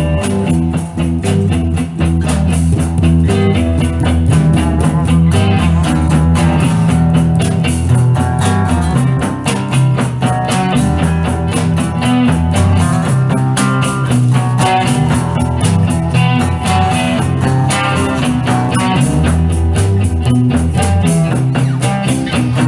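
Instrumental break in a rock song, led by guitar, with no singing.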